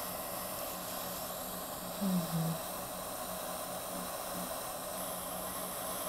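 Steady hiss of a facial steamer (vaporizer) running, with a brief low hum from a voice about two seconds in.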